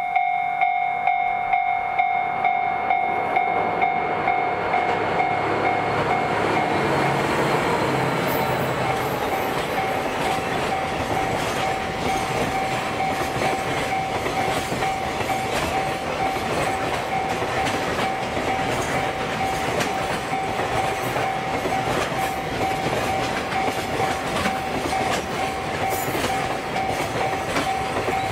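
A long container freight train passing at speed, a steady rumble and rapid clatter of wheels on rail building over the first several seconds and then holding. A steady high tone sounds underneath.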